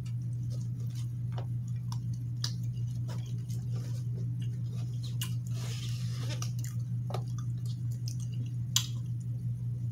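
Close-up eating sounds: chewing and wet mouth noises, with a plastic fork clicking and scraping in a takeout container, scattered small clicks and a sharper one near the end. A steady low hum runs underneath.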